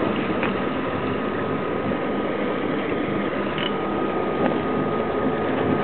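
Steady running noise of a sportfishing boat's engines, with water washing along the hull and a faint steady whine.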